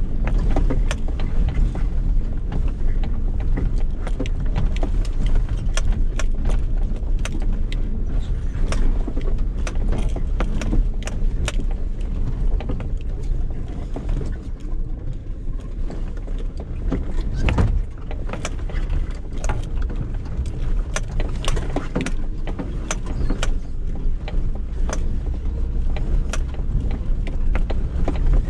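Suzuki Jimny's 1.3-litre inline-four engine running, heard from inside the cabin, with frequent sharp knocks and rattles as the vehicle jolts along a rutted off-road track.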